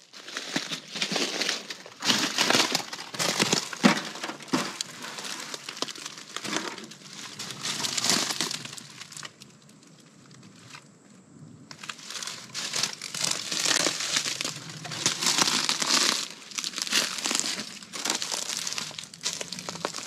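Footsteps crunching through dry leaf litter and brush, in an uneven walking rhythm. They stop for a couple of seconds near the middle, then go on.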